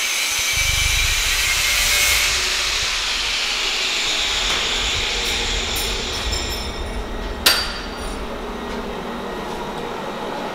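A power tool running steadily, loudest for the first two seconds, with one sharp knock about seven and a half seconds in.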